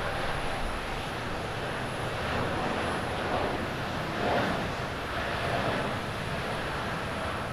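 Twin jet engines of a Japan Airlines Boeing 787 at takeoff power during the takeoff roll: a steady rush of jet noise with a faint whine, swelling gently in loudness.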